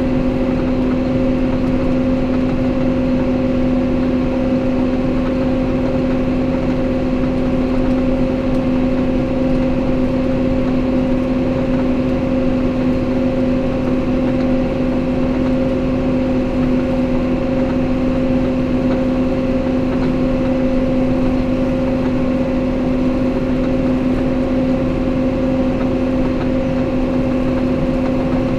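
Farm tractor engine running at a steady speed under way, heard from inside the closed cab: a constant drone with a strong unchanging hum.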